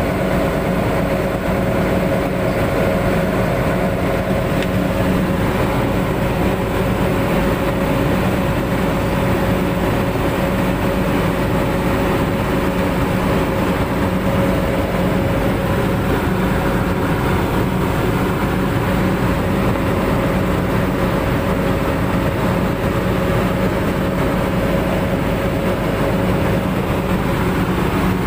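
Excavator's diesel engine running steadily at idle, a constant hum with a steady pitched drone and no change in speed.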